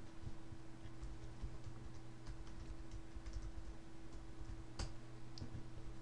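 Faint, scattered clicking at a computer desk, with one sharper click a little before the end, over a steady low electrical hum.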